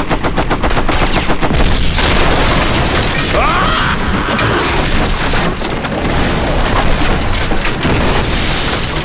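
Film sound effects: a rapid machine-gun burst that stops about a second and a half in, followed by a continuous din of booming explosions as a wooden bridge is blown apart.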